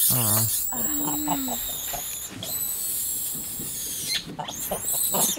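Vervet monkeys screaming during a fight: several high-pitched screams overlap and are held for about four seconds, then break into shorter rising and falling cries near the end.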